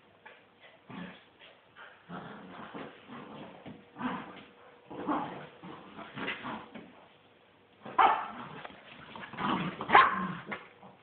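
Miniature dachshunds barking and yipping in play during a tug of war, in irregular bursts, the loudest about eight and ten seconds in.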